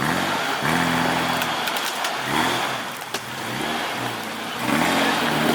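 Off-road vehicle engine revving hard in three bursts, rising in pitch each time, with a few sharp knocks in between.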